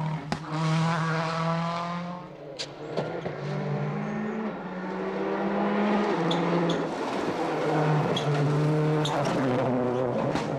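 Turbocharged four-cylinder World Rally Car engine at full stage pace. It revs up and drops back through quick gear changes, eases off briefly about two seconds in, and gives a few sharp cracks along the way.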